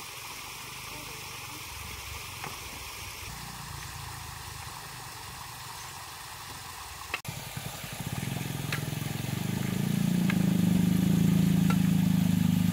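Stream water trickling, then, from about eight seconds in, a motor engine's low steady hum that swells in level and stays loud to the end.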